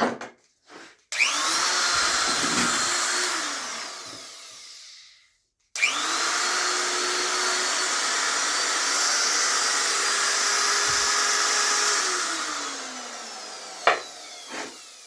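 Electric motor of a Metabo die grinder, newly fitted with a used 6202 bearing, switched on twice. Each time it spins up to a steady high whine and then winds down, the first run short and the second several seconds long. It runs slower than the owner remembers. Two sharp clicks come near the end.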